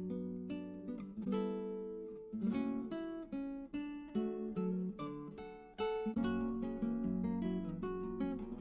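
Background music: a plucked acoustic guitar tune, notes picked one after another over a steady accompaniment.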